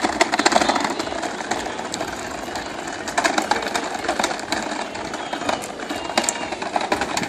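Hard plastic wheels of a toddler's ride-on toy car rattling as the car is pushed over pebble paving: a dense, continuous clatter, loudest at the start.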